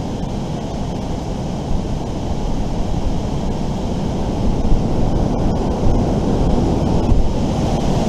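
Wind buffeting the microphone: a steady, loud, low rumble.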